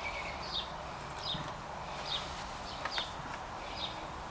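A small bird chirping over and over, short high downward chirps about every three-quarters of a second, over a steady background hiss with a few faint clicks.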